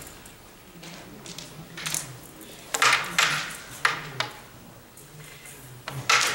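Carrom striker flicked across a wooden carrom board, clacking sharply against coins and the board's frame: a quick cluster of hard clicks about three seconds in, a few lighter ones after, and another sharp click near the end.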